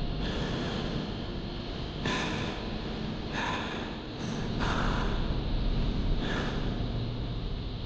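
A man laughing: several breathy bursts of laughter, each a fraction of a second long, spread over the few seconds.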